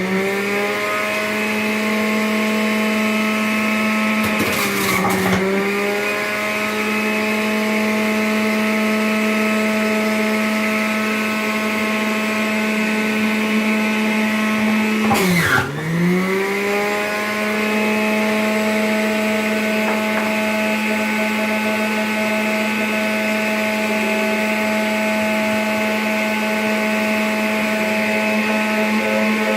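Black & Decker electric juicer's motor running steadily with a loud hum that sounds like a lawnmower. Twice, about 5 seconds in and about halfway through, its pitch sags and climbs back as the motor slows under load.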